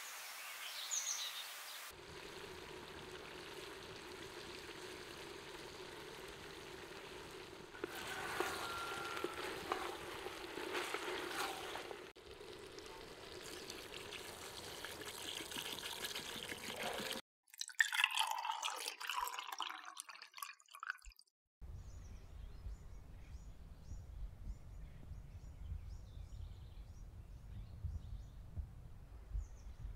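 Water being poured into a cast-iron cauldron, a steady pouring and trickling. The sound changes abruptly several times.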